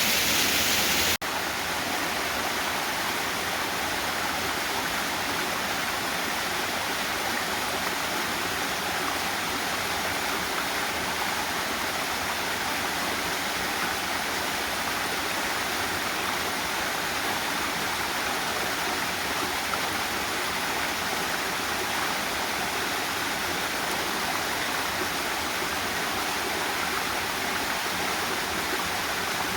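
Running water in a forest creek and waterfall, a steady rushing sound. About a second in, a louder, hissier rush cuts abruptly to a slightly softer, even one.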